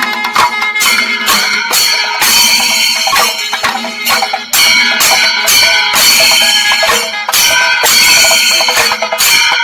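Kerala temple percussion ensemble (singari melam) of chenda drums and ilathalam hand cymbals playing a fast, dense rhythm, the cymbals ringing over the drum strokes.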